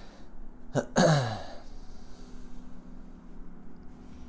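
A man's brief non-speech vocal noise, such as a throat clear: a sharp click about a second in, then a short voiced sound that falls in pitch, over a steady low hum.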